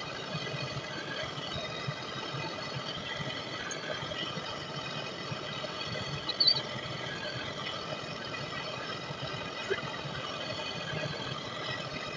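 Belt-driven lathe running steadily as a cutting tool skims the copper commutator of a starter motor armature, with a brief sharp squeak about halfway through.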